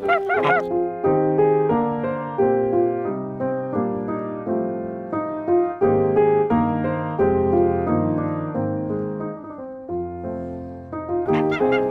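Background piano music: single melody notes over a low bass line. Short poultry calls cut in right at the start and again near the end.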